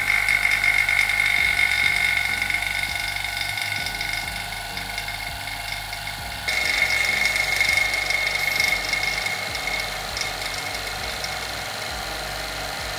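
Homemade high-voltage driver and hand-wound transformer running with a steady high-pitched whine and buzz. About six and a half seconds in it turns louder and harsher as a plasma discharge strikes between the spark plug electrode and the far end of the evacuated glass tube.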